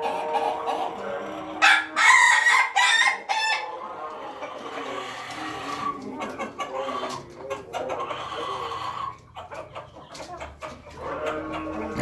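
Ayam ketawa (Indonesian laughing chicken) rooster crowing, its choppy crow loudest about two seconds in and carrying on more quietly for several seconds, with hens clucking around it. A few sharp taps come near the end.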